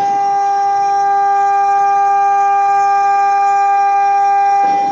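CNC router's electric spindle running at a steady high-pitched whine while it mills sheet material, with a faint hiss of the cut underneath. A short rush of noise comes near the end.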